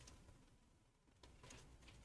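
Near silence, with a sharp click right at the start and a few faint clicks and rustles of small tools and phone parts being handled during reassembly.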